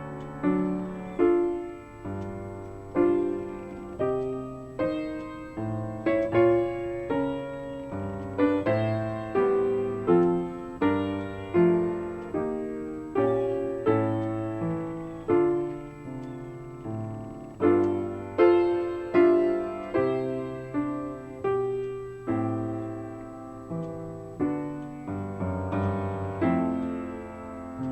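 Solo piano music playing a slow, gentle melody, each note struck and left to fade.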